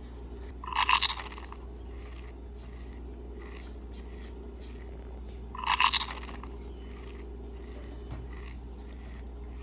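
A child chewing a mouthful of chocolate, with two short, loud, crackly bursts, one about a second in and another about six seconds in, over a steady low hum.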